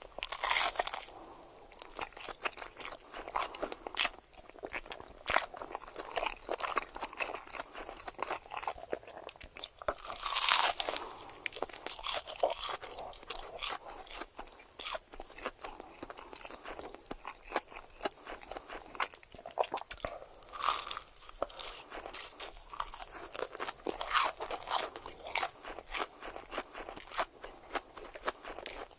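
Close-miked eating: crunchy bites and chewing, with many crisp crackles and a few louder crunches spread through.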